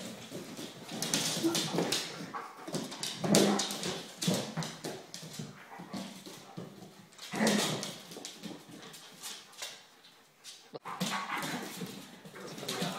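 A large dog and a small dog play-fighting: short dog vocal noises and scuffling, with claws clicking on a hardwood floor, in several bursts.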